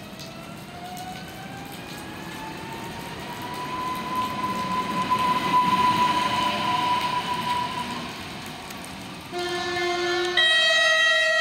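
Electric train pulling away, its motor whine rising in pitch as it accelerates and then holding steady over rail rumble. Near the end an orange regional electric multiple unit sounds its two-tone horn, a lower note followed by a louder, higher one.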